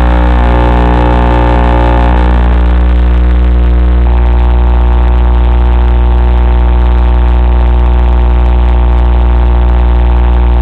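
Loud, steady electrical buzz in an analog FPV video recording, a hum with many evenly spaced overtones. Its upper overtones thin out and the pattern shifts between two and four seconds in, then it holds steady.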